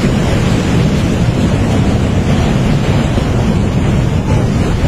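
Flash-flood torrent of muddy water and rocks rushing down a mountain valley, a loud, steady, deep rush with no letup.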